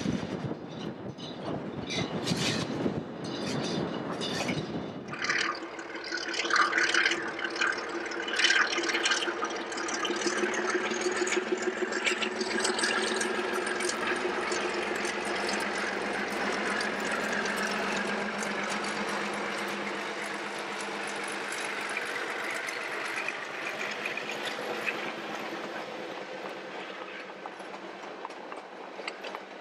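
White Pass & Yukon narrow-gauge Alco diesel locomotive hauling passenger cars slowly past, engine running steadily with a thin high whine that rises in pitch partway through. The first few seconds hold a rougher low rumble with knocks before the steady train sound takes over.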